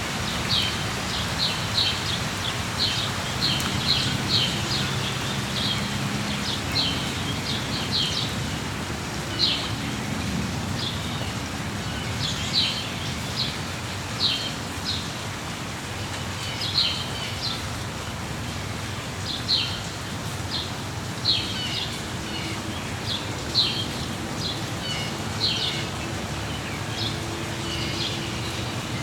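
Steady rain falling, with a songbird chirping over it in short, high chirps repeated about once a second.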